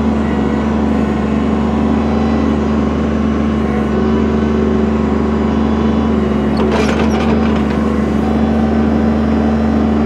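Kubota BX subcompact tractor's three-cylinder diesel engine running steadily with an even drone.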